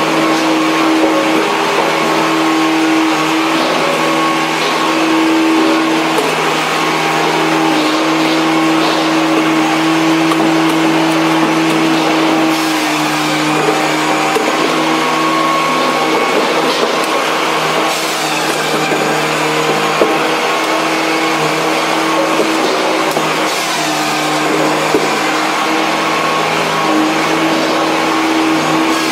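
Firewood processing machinery running: a steady motor hum, with occasional knocks of split wood tumbling in a rotating drum cleaner and moving along a conveyor.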